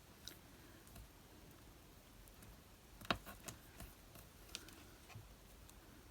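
Faint scattered clicks and taps of small card pieces being handled on a craft work surface, with one sharper click about three seconds in and a few lighter ones just after.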